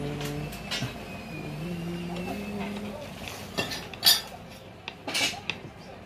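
A few sharp metallic clinks and clanks of tools being handled in a motorcycle repair shop. The loudest comes about four seconds in, with others just after.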